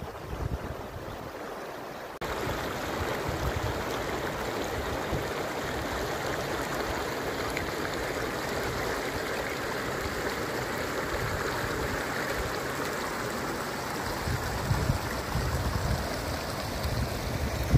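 Shallow mountain stream rushing and gurgling over stones: a steady rush of water that starts suddenly about two seconds in, after a low rumble.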